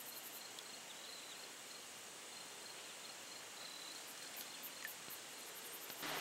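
Crickets and other insects chirping in a faint, steady, fast-pulsing high trill, with a few short bird chirps over it.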